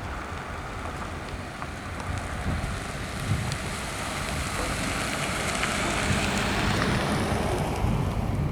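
Freight train led by EMD diesel locomotives drawing nearer, the engine rumble and rolling noise growing steadily louder, with wind buffeting the microphone.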